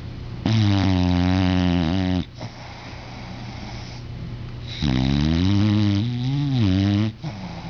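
English bulldog snoring in its sleep: two long, loud snores of about two seconds each, one about half a second in and one about five seconds in, each with a wavering pitch.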